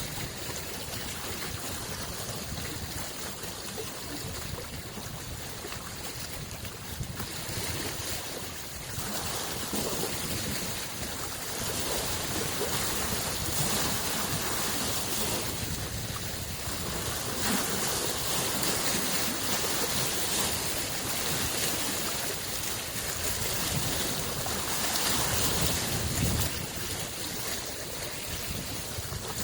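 Small lake waves washing onto the shore, the sound swelling and easing every few seconds.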